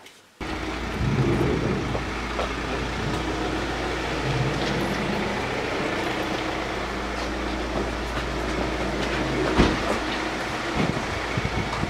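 A steady, loud rumbling drone with a low hum cuts in suddenly about half a second in and holds steady, with a couple of sharp knocks near the end.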